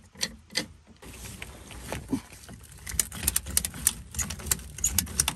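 Ratchet strap being cranked tight around a pickup truck's plastic fuel tank to hold it back in its seat: a few clicks near the start, then from about three seconds in a steady run of sharp ratchet clicks, about four a second.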